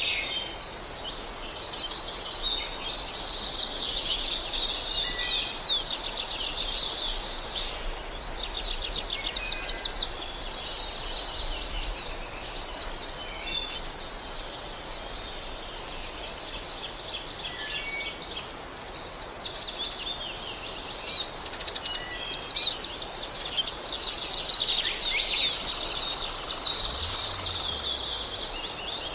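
Small birds chirping and twittering: many quick high chirps and trills in busy spells, with a quieter stretch around the middle.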